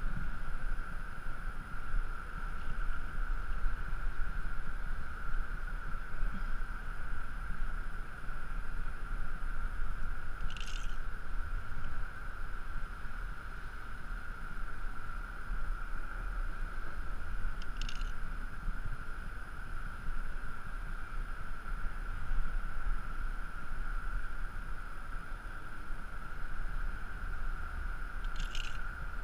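Wind buffeting the microphone of a body-worn camera during a rope descent: a constant low rumble with a steady whine over it, and three brief scratchy rustles, a third of the way in, past the middle and near the end.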